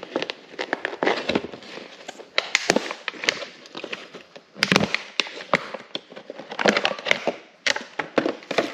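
Stiff clamshell plastic packaging crackling and snapping as it is cut and pried open with a knife, in many irregular sharp cracks and clicks.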